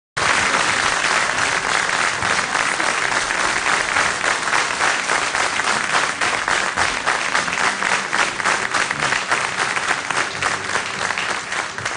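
Audience applauding: dense, steady clapping that starts abruptly and thins out near the end.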